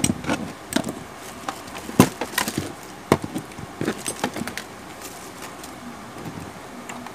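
Handling noise at a repair bench: a string of sharp clicks and light knocks as a phone circuit board, phone parts and small tools are picked up and set down. They crowd the first four and a half seconds and thin out after.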